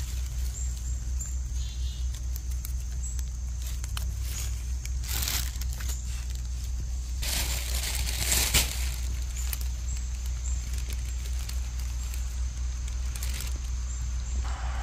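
Dry pine needles on the forest floor rustling and crackling as they are handled, in a few short bursts, the loudest about eight seconds in, over a steady low rumble. Footsteps through the needles start near the end.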